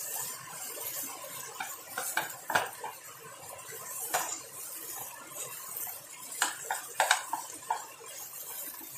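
Wooden spatula stirring and scraping okra and scrambled egg around a frying pan, with a few irregular knocks of the spatula against the pan.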